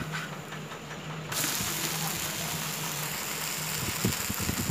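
Rava dosa batter sizzling on a hot tawa: a steady frying hiss that starts suddenly about a second in, where the dosa is turned over onto the pan, with a few light knocks near the end.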